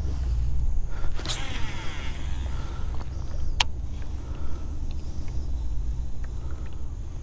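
Wind buffeting the microphone as a steady low rumble, with light ticks and one sharp click about three and a half seconds in.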